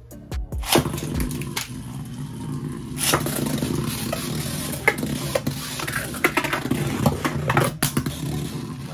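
Two Takara Tomy Beyblade Burst QuadStrike tops, Divine Belfyre and Chain Kerbeus, launched into the stadium about a second in with a sharp clack. They then spin with a steady whirr, clacking against each other several times.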